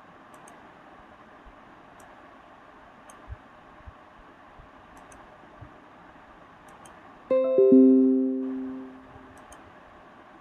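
Short plucked-string musical sting: three quick notes, each lower than the one before, struck about three quarters of the way through and ringing out for about a second and a half over a steady faint hiss.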